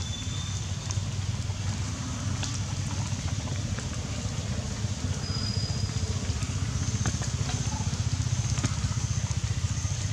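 Steady low rumble of wind buffeting the microphone outdoors, with faint high insect-like tones and a few soft clicks.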